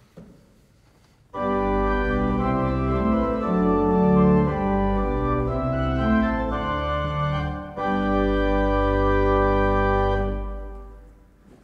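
One-manual Hewitt pipe organ played with all its stops drawn together (full organ), the 16-foot pedal Bourdon sounding in the bass: a short passage of chords starting just over a second in, ending on a long held chord that fades away near the end.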